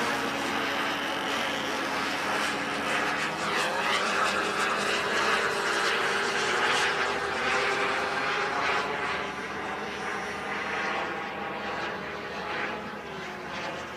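Radio-controlled model jet flying overhead, its engine a steady whine that bends in pitch as it passes and fades near the end as it flies off.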